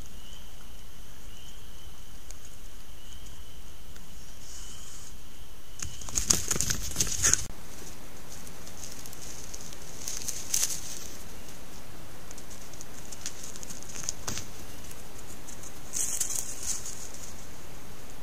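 Steady hiss from a trail camera's microphone, with four short bursts of rustling and crackling, the loudest and longest about six seconds in, as of animals moving through dry leaves. A faint high chirp repeats about once every second and a half during the first six seconds.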